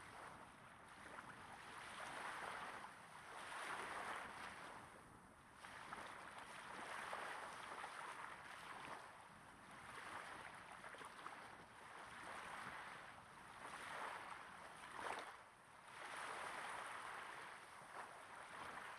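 Small waves gently breaking and lapping on a sandy beach, close to the microphone, each wash swelling and fading about every two seconds, with a sharper splash about fifteen seconds in.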